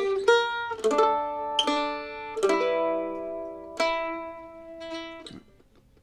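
Mandolin playing a slow melodic phrase: single notes and pairs of notes plucked about a second apart and left to ring, dying away near the end.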